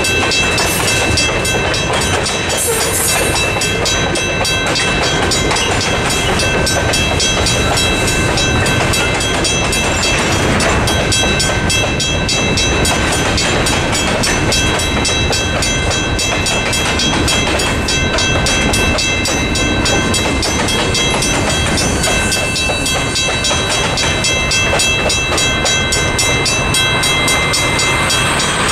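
Western Cullen Hayes mechanical crossing bell ringing in rapid, steady strokes at an active level crossing, over the rumble and wheel clatter of freight tank cars and covered hopper cars rolling past.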